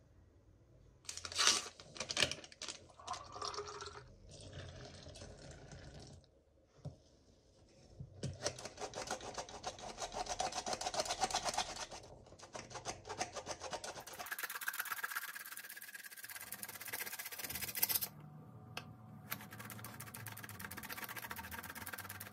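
Flour sifted through a stainless-steel hand flour sifter into a plastic bowl: a rapid, even metallic ticking and rasp of the sifter's mechanism, in long runs. A few sharp knocks and rustles come in the first few seconds.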